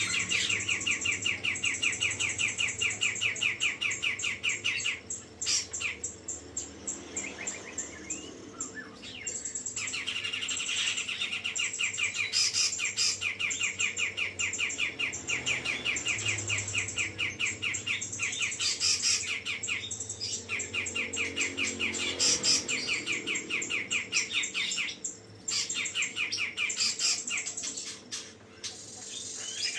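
Grey-cheeked bulbul (cucak jenggot) singing in long runs of rapid, repeated chattering notes with high trills, broken by a few short pauses.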